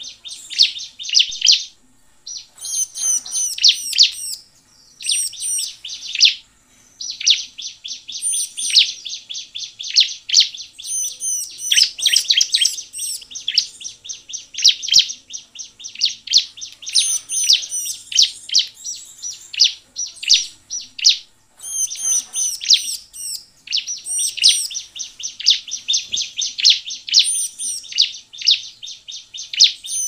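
Bar-winged prinia (ciblek) singing nonstop in fast, high-pitched chattering phrases, broken only by a few brief pauses.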